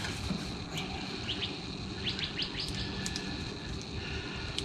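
Small birds chirping: a few short, quick high notes, then a rapid run of them about two seconds in, over a steady low hum.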